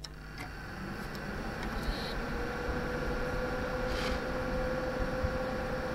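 Olivetti NetStrada 3200 server powering on: its cooling fans spin up over the first couple of seconds and settle into a steady whir with a thin whine that rises slightly, then holds.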